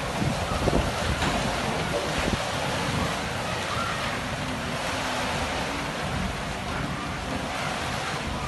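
Heavy monsoon rain falling steadily, with wind buffeting the microphone in uneven low rumbles.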